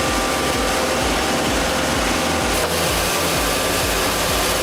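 Baker 3674DD sawmill running, its blade cutting through wood: a steady, dense machine noise with an engine hum underneath, with a short break about two and a half seconds in.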